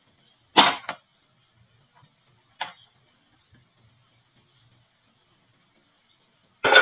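Two sharp clacks of marbles striking the wooden marble run, a loud one about half a second in with a brief ring and a weaker one near the three-second mark. A faint, steady, high-pitched pulsing chirp runs underneath, and music cuts in at the very end.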